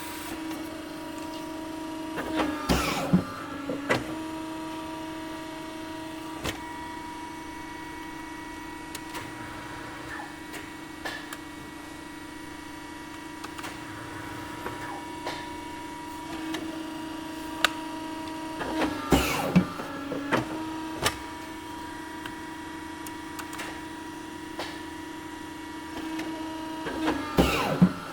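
Industrial cutting machine running with a steady humming drone. Three bursts of sharp clattering clicks come through: about three seconds in, around twenty seconds in, and again near the end.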